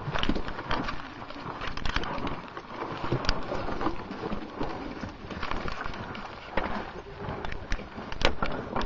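Rustling with irregular clicks and knocks: handling noise of a caver's clothing and gear rubbing against a body-carried camera during a cave descent.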